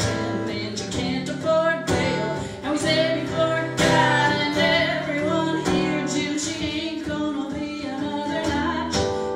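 Live acoustic blues: a woman singing with strummed acoustic guitar, and a harmonica playing along.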